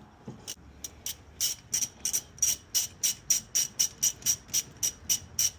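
Ratchet wrench clicking in a steady run, about three clicks a second, as a brake caliper bolt is backed out. The clicks are faint at first and turn sharp and regular about a second and a half in.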